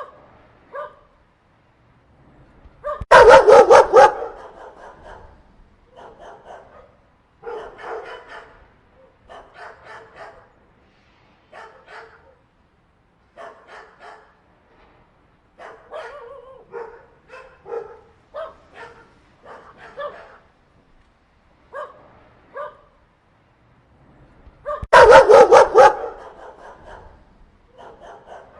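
A group of dogs barking in scattered volleys, with quieter barks and yips between two much louder bursts of rapid barking, one about three seconds in and one near the end.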